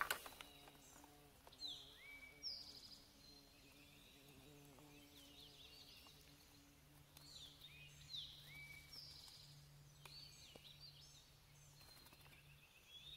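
Faint woodland birdsong: several birds calling with short, falling notes repeated every second or so, over a faint steady low hum.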